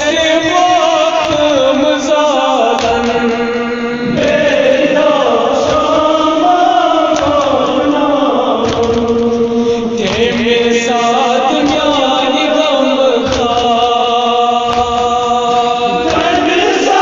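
Male voices chanting a Kashmiri nauha, a Muharram mourning lament, in long held notes that slide up and down.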